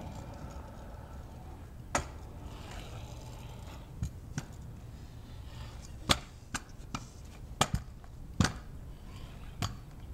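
Kick scooter clacking on concrete: a string of sharp knocks as the deck and wheels hit the ground, the loudest about six and eight and a half seconds in, over a steady low rumble.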